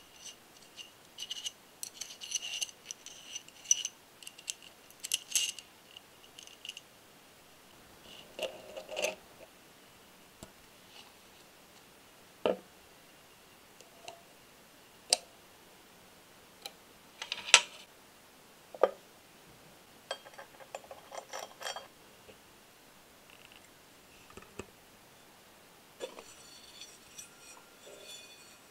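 Small metal parts of an engine model kit clicking, tapping and scraping against each other as they are handled and fitted together. Clusters of light metallic clicks with a brief ring, and a few sharper single knocks in the middle.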